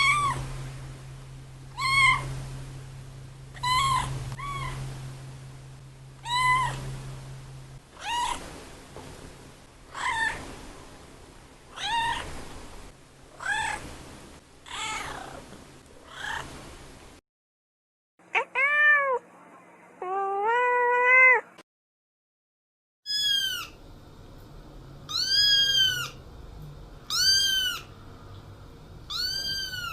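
Domestic cat meowing over and over. First comes a run of short meows about every one and a half seconds, then, after a break, two longer, lower meows. After another break comes a series of higher-pitched meows about once a second.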